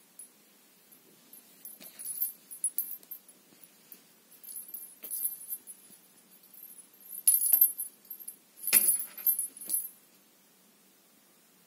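A feather cat-teaser wand being shaken to lure a cat, jingling and clicking metallically in several short bursts, the loudest about 7 and 9 seconds in.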